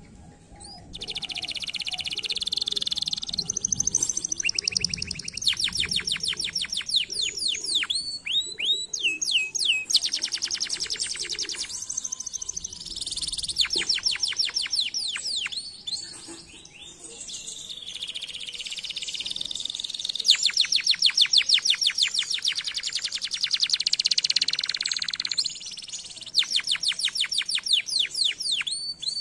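Domestic canary singing a long, continuous song. It is built of rapid trills of evenly repeated notes and strings of falling whistled notes, with brief pauses between phrases.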